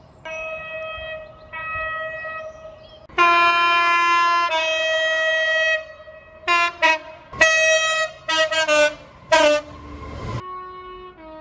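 Train air horns sounding chords of several tones: long held blasts in the first half, then a quick run of short toots. The chord changes from one blast to the next, as from several different horns in turn.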